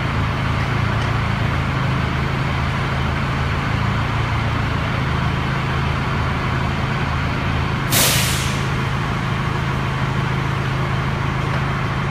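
Cat P3000 propane forklift running steadily while its mast is lowered, a constant low engine hum. About eight seconds in comes one short, loud hiss.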